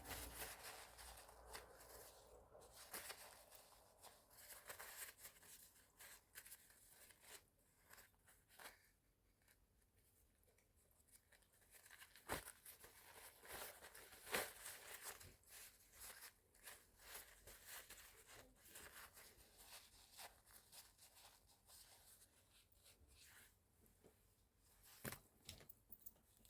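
Near silence with faint, scattered rustling and small clicks of things being handled, with a few sharper clicks along the way.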